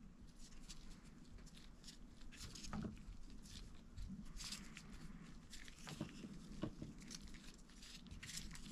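Faint, scattered small clicks and scrapes of nitrile-gloved hands turning a small tool to screw a threaded insert into the end of a hydraulic brake hose.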